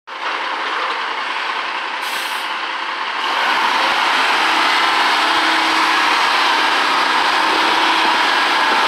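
Peterbilt 310 garbage truck with a McNeilus front-loader body running as it creeps forward, a steady engine rush that gets louder about three seconds in. A brief high air hiss, like an air brake, about two seconds in.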